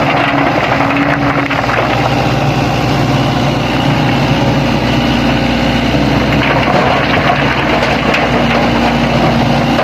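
Heavy diesel engine of construction machinery running steadily, with small shifts in pitch.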